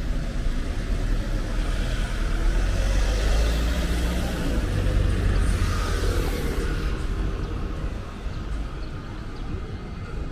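A car driving past on the street: engine rumble and tyre noise swell over the first few seconds, then fade away after about seven seconds.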